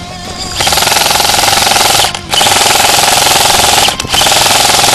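Airsoft electric guns firing on full auto in long continuous bursts, starting about half a second in and pausing briefly twice.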